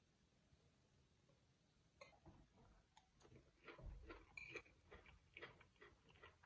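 Near silence for about two seconds, then a man chewing cooked bamboo shoots with his mouth closed, faint and irregular, with a few sharp clicks of a metal spoon against a china plate.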